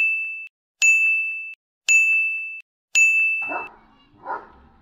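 Four identical electronic ding tones, about a second apart, each a clear high note that starts sharply and fades. A couple of faint short sounds follow near the end.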